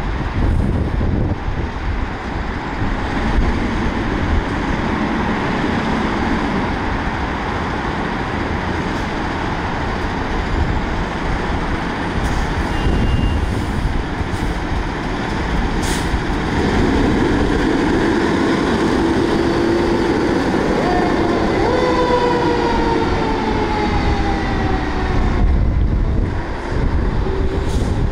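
A 2014 Spartan Gladiator fire engine runs loudly as it pulls out to respond. In the second half its siren sounds over the engine, its pitch sliding down for a few seconds.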